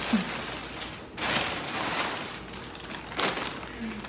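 Large plastic mailer bag rustling and crinkling as it is lifted and handled, with a sharp crackle about three seconds in.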